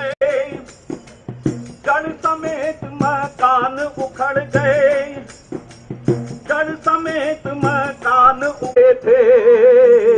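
Music: a song with a voice held in heavy vibrato over light, quick percussion.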